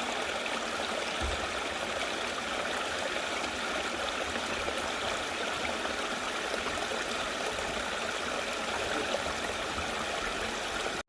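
Mountain stream water flowing steadily over rocks, a continuous, even rush.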